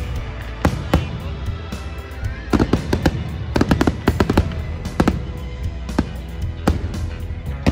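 Aerial fireworks going off in quick succession, sharp bangs with crackle, bunched into rapid clusters about two and a half seconds and about four seconds in, over music.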